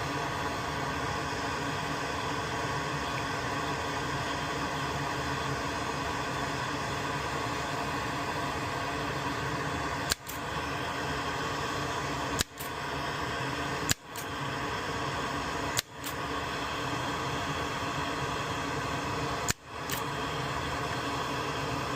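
Hot-air rework station blowing steadily while heating the board. From about halfway through come several sharp clicks; after each one the airflow dips briefly and builds back up.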